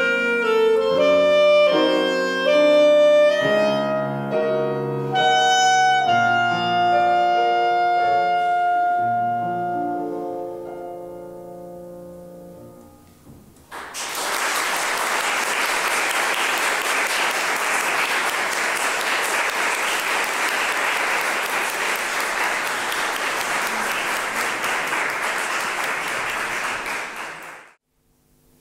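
Clarinet and grand piano finish a classical piece, the last notes dying away. About halfway through, audience applause breaks out, holds steady for about fourteen seconds and then cuts off suddenly.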